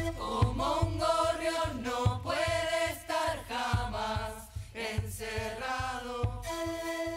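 Sikus (Andean panpipes) played by an ensemble, a melody of breathy held notes that change about every half second, over a regular beat on a bombo bass drum.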